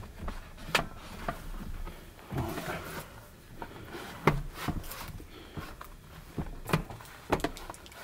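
Scattered knocks and clicks, a few of them sharp, with a brief rustle, as a smoke detector tester is handled and fitted over a ceiling smoke detector.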